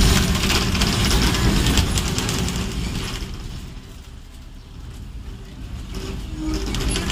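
Hong Kong double-decker tram running, a rumble with dense metallic rattling that eases off around the middle and builds again near the end.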